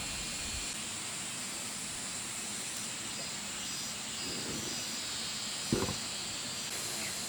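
Steady high-pitched hiss of outdoor background, with one short knock about six seconds in.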